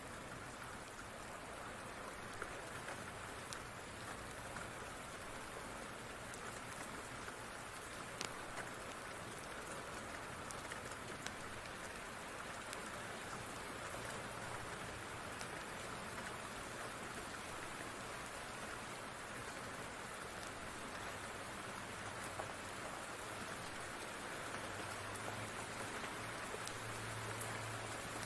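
Steady rain falling, with occasional sharp crackles from a wood fire in a fireplace. A low rumble of distant thunder swells near the end.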